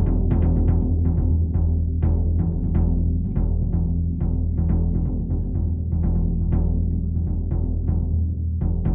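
Drum music: a bass drum struck by its pedal beater in a quick, uneven rhythm of about three hits a second, over a steady low ringing tone.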